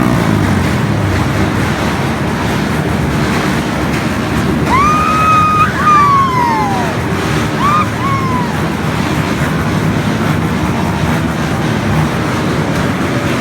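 Vehicle engines running with a steady rumble, and a few short whistle-like tones about halfway through that rise, hold briefly and fall.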